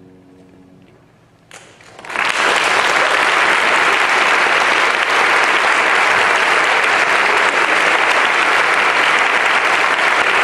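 A brief hush as the last chord dies away, then an audience breaks into applause about a second and a half in, which quickly swells and holds loud and steady.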